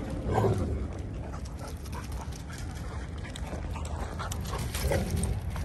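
A dog giving short vocal sounds, once about half a second in and again near the end, over a steady low rumble.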